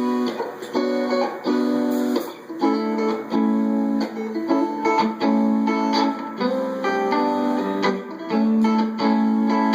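Guitar strumming chords in a steady pattern, the instrumental opening of a song played live before the vocals come in.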